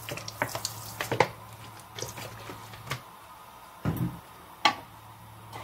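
Vinegar pouring from a plastic bottle onto salt in a plastic bowl, with a splashing hiss that stops a little over a second in, followed by a few scattered light knocks and one sharp click near the end.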